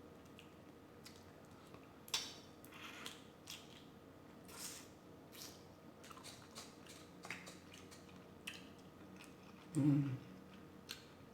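Close-miked eating of a seafood boil: soft wet chewing and smacking with scattered small clicks from handling sauced shellfish. A brief low hum-like vocal sound comes about ten seconds in.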